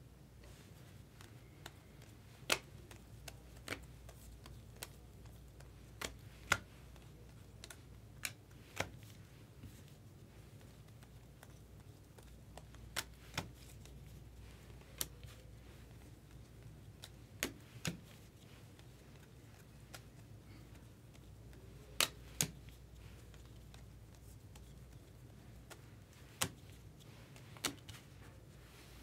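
Stiff chrome baseball cards being flipped off a hand-held stack and laid on piles. Each card gives a sharp click, mostly in pairs about half a second apart, every few seconds, over a low steady hum.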